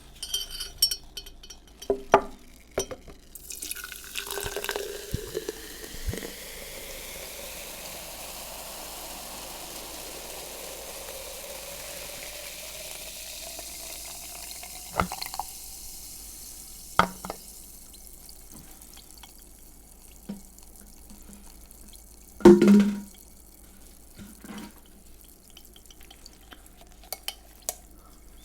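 A drink poured into a glass, the pour's pitch rising slowly as the glass fills, with a fizzing hiss. A few clicks and clinks come before and after, and one loud knock about 22 seconds in.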